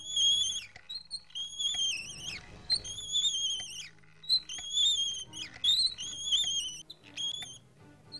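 Squeaky casters of a pushed book trolley: a run of high, wavering squeals at nearly the same pitch, each under a second long and coming about once a second, over a faint low hum.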